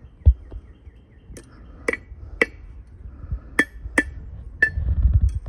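Blacksmith's hammer striking iron on an anvil, about nine irregular ringing blows with pauses between them. A low rumble runs under the strikes and grows louder near the end.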